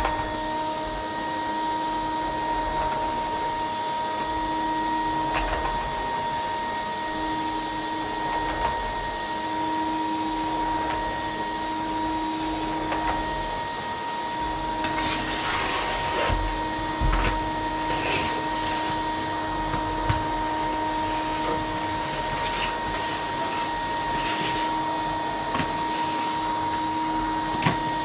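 Vacuum cleaner running steadily with a constant high whine over its airflow noise, worked over a wooden floor, with a lower hum that comes and goes and scattered small knocks and rattles from the nozzle.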